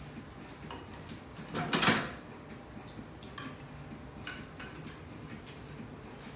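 A few light knocks and clicks, with one louder clatter about two seconds in.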